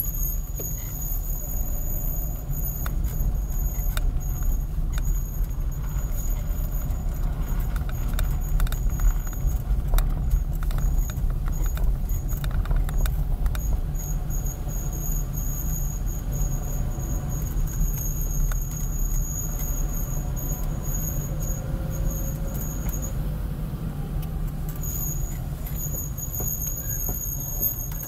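A car driving slowly, heard from inside the cabin: a steady low rumble of engine and tyres, with scattered knocks and rattles, most of them midway. A thin, high-pitched whine runs over it and drops out briefly near the end.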